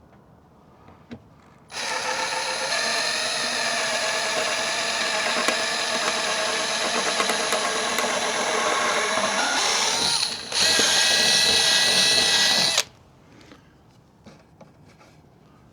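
Power drill boring a hole through a gate, running steadily for about eight seconds, dipping briefly, then running again with a higher whine for about two seconds before stopping.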